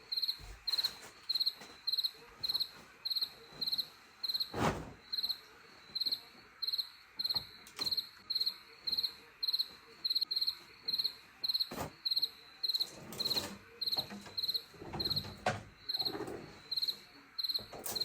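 A cricket chirping steadily, short trilled chirps at about two and a half a second, with a few soft knocks in between.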